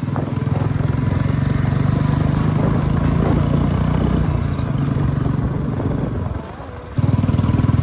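Royal Enfield Bullet 350's single-cylinder engine running loud through an aftermarket shot-bottle silencer as the bike is ridden at steady throttle. It drops quieter for under a second near the end, then picks up again.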